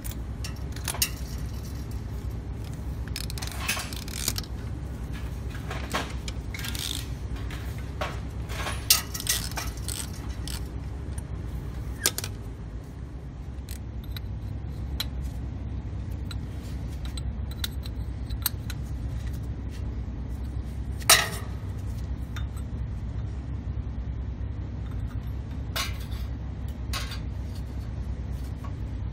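Hand tools clinking and tapping against steel exhaust-manifold studs and nuts as the manifold sections are fitted and the nuts run down with a socket and wrench: scattered sharp metallic clicks, the loudest about 21 seconds in, over a steady low hum.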